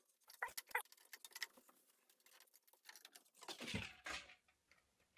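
Hands working on the bed inside a Bambu Lab H2D 3D printer's enclosure to free its transport screws: scattered light clicks and taps on metal and plastic, with a longer scrape about three and a half seconds in.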